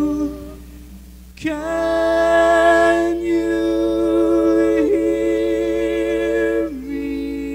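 A vocal group singing long, wordless held chords without accompaniment. After a brief dip, a louder chord comes in about a second and a half in and is held with a slight waver, changing twice before settling into a quieter chord near the end.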